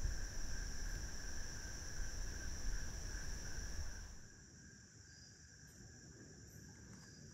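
Steady chorus of insects trilling on two unbroken high tones. A low rumble underlies it for the first four seconds and cuts off suddenly, leaving only the insects.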